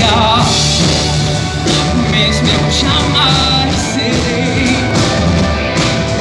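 A woman singing live into a microphone over a loud rock-pop backing band.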